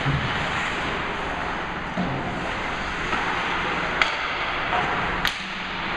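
Ice hockey play in an indoor rink: a steady wash of skate and rink noise, broken by sharp clacks of sticks and puck, the clearest about four and five seconds in.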